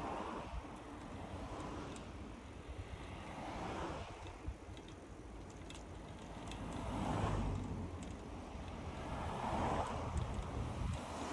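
Outdoor ambience by the sea: wind rumbling on the microphone, with a few slow rushes of noise that swell and fade every few seconds.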